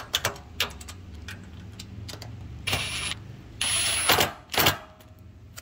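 Cordless Metabo impact driver running in short bursts, snugging hex bolts down into the steel frame of a workbench: two runs of about half a second each around the middle, then a brief blip, after a few light clicks at the start.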